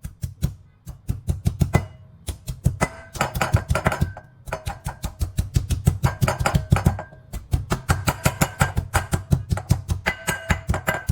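Pestle pounding onions in a mortar: rapid, regular strikes, about four or five a second, each with a ringing tone, stopping briefly a few times.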